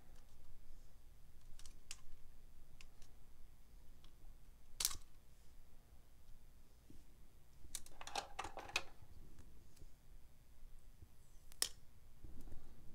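Hands handling a DJI Osmo Action camera and its plastic packaging pieces: scattered light clicks and plastic taps, a sharp snap about five seconds in, a brief crinkling rustle around eight seconds, and another sharp click near the end.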